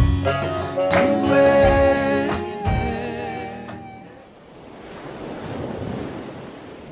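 The end of a song: last chords and a held note ring out and fade about four seconds in, leaving the steady wash of ocean surf.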